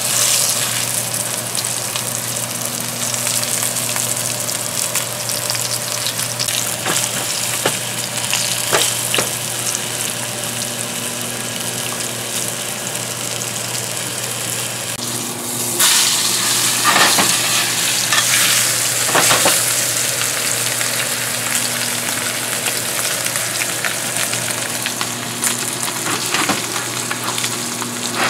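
Beef roast searing in a hot cast iron skillet: steady sizzling with crackles and pops of spitting fat, surging louder for a few seconds about halfway through. A steady low hum runs underneath.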